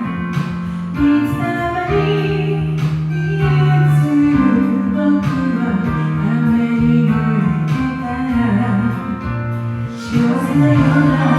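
Female voice singing a Japanese pop song over a karaoke backing track.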